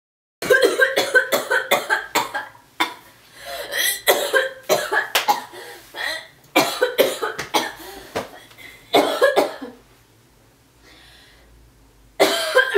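A woman coughing hard in repeated fits, choking on a small gnat. The coughs come in quick runs of several with short gaps between the runs.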